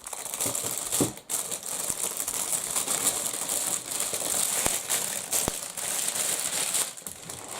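Packaging crinkling and rustling as a parcel is unwrapped by hand, with a few sharp clicks.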